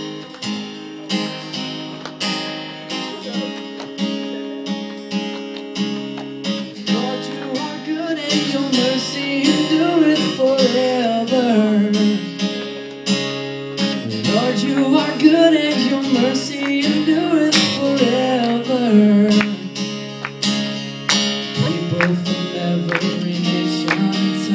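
Acoustic guitar strummed in a steady rhythm as a song's opening. From about eight seconds in, a voice sings a wavering melody over it for around ten seconds.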